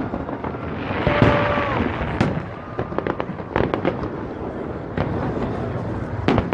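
Aerial fireworks bursting: a string of sharp bangs and pops with crackling, the loudest bangs about two seconds in and near the end, over crowd noise.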